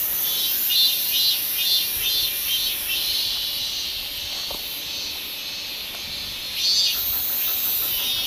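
Steady high-pitched insect shrilling, with a run of about six short pulsing chirps in the first three seconds.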